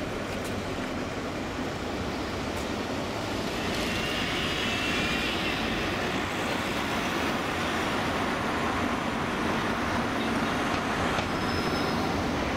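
Alstom Citadis 402 low-floor tram approaching along street track, its running noise growing louder from about four seconds in, with a thin high-pitched squeal for a few seconds, over passing car traffic.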